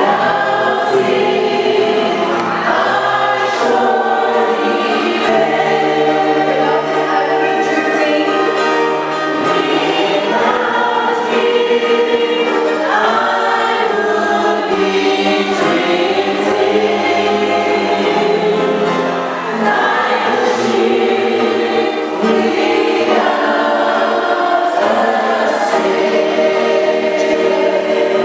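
A choir singing a hymn, several voices in harmony holding long notes.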